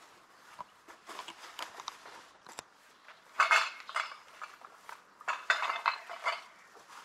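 Rattling and scraping right at the microphone in two bouts, about three and a half and five seconds in, as a cat comes up to the ground-level camera and brushes or noses against it.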